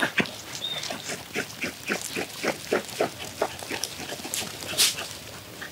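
Rhythmic rough scrubbing, about four strokes a second: raw cow stomach being rubbed and scoured by hand.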